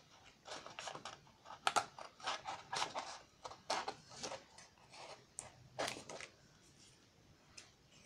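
Scissors snipping through green cardstock, short crunchy cuts about two a second, following a wavy line. The cutting stops a little after six seconds in.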